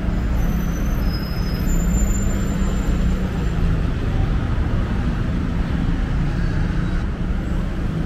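Busy city road traffic, buses and cars: a steady low rumble of engines and tyres.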